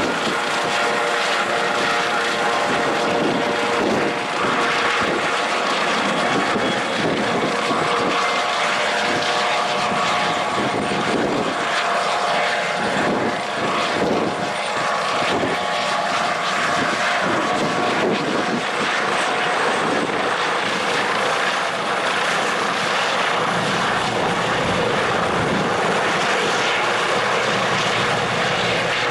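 Helicopter turbine engines and main rotor running, with a steady turbine whine over a pulsing rotor beat. A high whine edges up in pitch about two-thirds of the way through, and a deeper rumble builds near the end.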